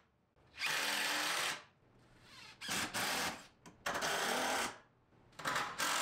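Cordless drill/driver driving 2 1/2 inch screws through wood framing studs, in four separate runs of about a second each with short pauses between them.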